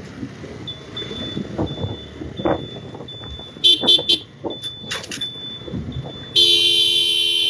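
Motorcycle horn, sounded in a few quick short beeps about three and a half seconds in, then held in one long blast of about a second and a half near the end, over the rumble of wind and road traffic while riding. A faint, quick high-pitched beeping repeats underneath.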